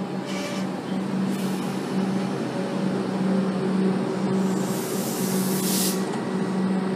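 EDI-refurbished Comeng electric train standing at the platform, its onboard equipment giving a steady low hum. Short hisses of compressed air come near the start and about a second in, and a longer, louder hiss comes about five seconds in.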